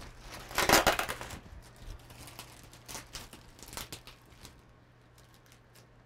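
Plastic bag crinkling and rustling as it is handled around a foam packing block, loudest about a second in, then a few scattered crinkles that die away.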